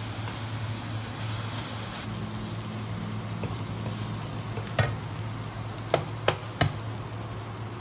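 Fried ramen with prawns and cabbage sizzling in a nonstick frying pan while a wooden spatula stirs and pushes it aside, over a steady low hum. Near the end the spatula knocks sharply on the pan four times in under two seconds.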